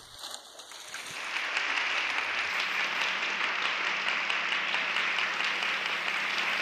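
An audience applauding in an archival speech recording. The applause swells about a second in and then holds steady.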